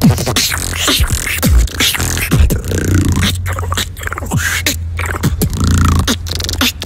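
Beatboxing: a fast run of sharp clicks and snares over deep kick sounds that drop in pitch, part of a liproll-heavy freestyle.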